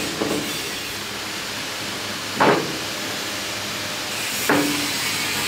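Machined steel shaft being slid into a Panzer I final drive housing: two short metallic knocks, about two and a half and four and a half seconds in, the second ringing briefly, over a steady workshop hiss.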